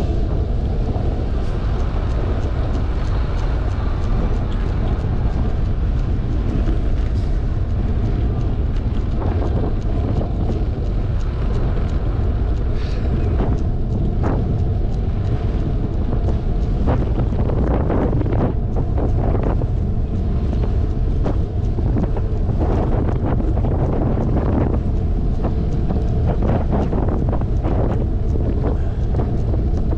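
Wind rushing over a bike-mounted action camera's microphone with a constant low road rumble from a fixed-gear bicycle rolling over cracked asphalt. Many short knocks and rattles come through, more of them in the second half.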